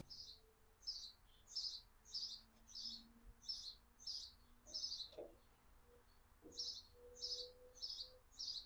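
A bird repeating one short, high chirp about twice a second, with a pause of about a second midway before it carries on.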